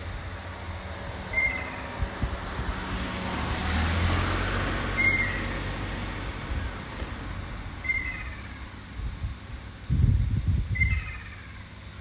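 Ruddy kingfisher calling four times, each a short falling call, about one every three seconds. Behind it a broad swell of noise rises and fades in the middle, and there is low rumbling near the end.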